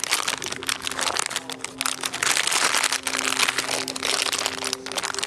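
Plastic treat bag crinkling and rustling in the hands as it is worked open, with a faint steady low tone underneath.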